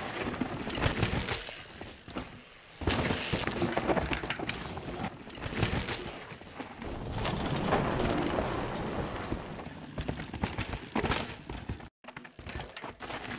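Mountain bike ridden hard down a dirt forest trail: tyres skidding and crunching over dirt and roots, with rattling and clicking from the bike. It comes in several passes that change abruptly from one to the next.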